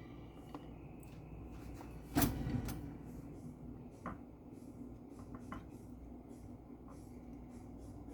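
Light clicks and knocks of food and containers being handled on a kitchen counter, with one sharper knock about two seconds in.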